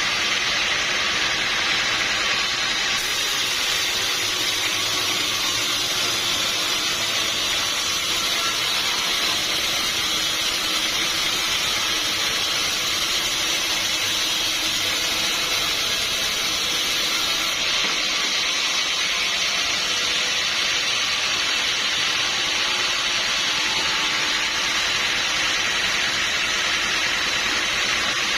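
Sawmill machinery running steadily, giving a constant hissing mechanical noise that does not change.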